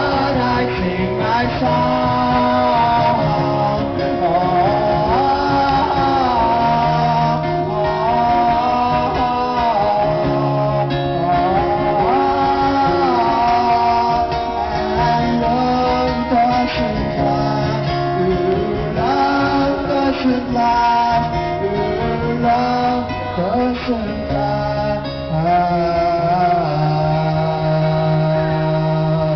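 A live rock band plays an instrumental stretch of the song, with guitar to the fore, heard from the audience at an open-air concert. Near the end a low note is held steadily.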